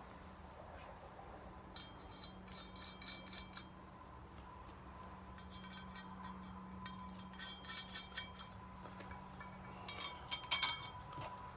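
Small metal clinks and rattles of steel bolts, nuts and parts being handled and fitted by hand, in scattered clusters of light taps with the loudest cluster near the end. A faint steady hum runs underneath.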